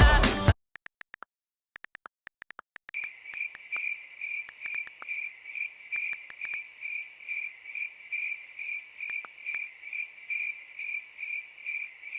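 A pop song cuts off abruptly about half a second in. After a short silence, a cricket chirps steadily, about two high chirps a second.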